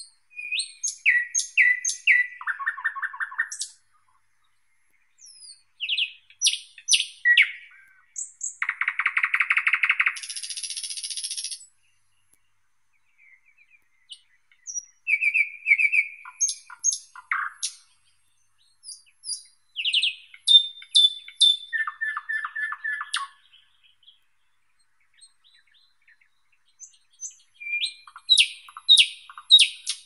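Thrush nightingale (sprosser) singing: about six phrases, each a series of repeated notes such as clicks, whistles and a fast dry rattle, separated by pauses of a second or two.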